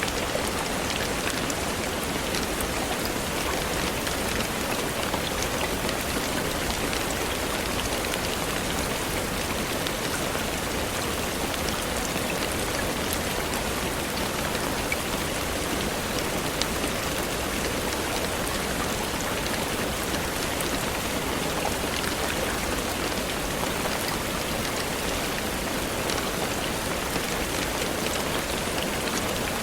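Steady rain falling on leaves, a continuous even hiss with scattered individual drop hits.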